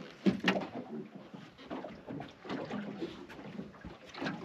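Sharp knock on a boat about half a second in, followed by smaller knocks and rustling aboard.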